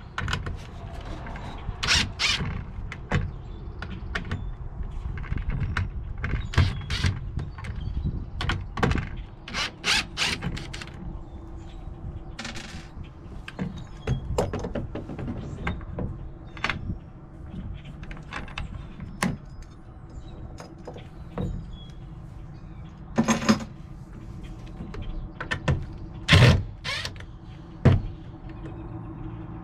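Cordless DeWalt impact driver backing out hinge screws from a wooden cabinet door in short runs, the longest and loudest near the end. Between runs, metal hinges and screws click and knock as they are handled.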